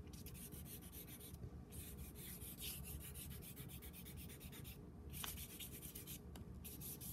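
Chalk pastel scratching across paper in rapid back-and-forth strokes, pausing briefly about a second and a half in, around five seconds and again near six.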